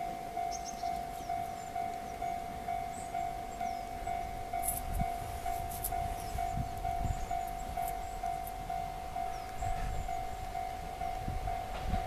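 Japanese railway level-crossing warning bell ringing, a steady electronic ding repeated about twice a second, signalling an approaching train. Faint bird chirps and a low rumble underneath.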